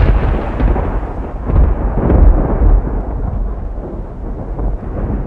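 Loud rolling thunder rumble that swells a couple of times and then slowly dies away.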